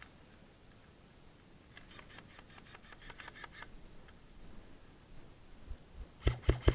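A quick run of light, sharp clicks about two seconds in, then near the end a short burst of four loud sharp cracks with a low hum beneath them: an airsoft gun firing a short burst.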